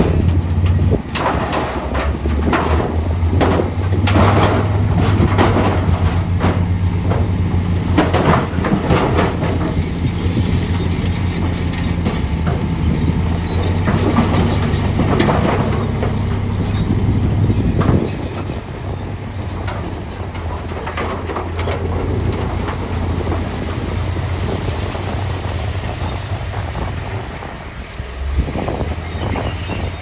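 Dump truck's diesel engine running steadily while its bed tips, with rocks and soil tumbling out of the bed in many clatters. The clatter is loudest in the first half and eases about two-thirds through, leaving mostly the engine.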